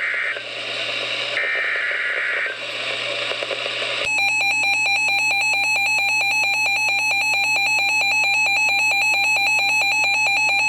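Emergency Alert System broadcast over a radio channel: short bursts of warbling SAME data tones over static, then from about four seconds in the loud, steady two-tone EAS attention signal sounding continuously.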